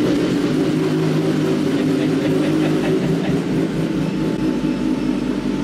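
A workshop machine's motor starting up and then running steadily with a loud rumbling whirr.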